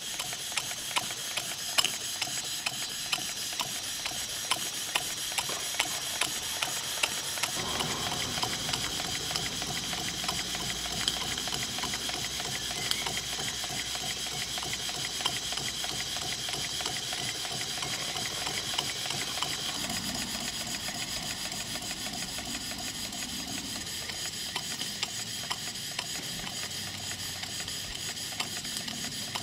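Stuart James Coombes model vertical steam engine running on live steam: a fast, even clatter of its valve gear and exhaust beats over a steady hiss of steam. A lower rumble fills out the sound about eight seconds in.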